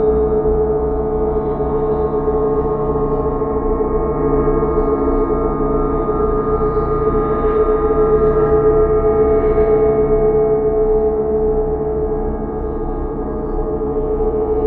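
Horror ambient drone sound effect: a steady, sustained tone with one strong pitch and many other tones stacked above and below it, dipping a little in loudness near the end.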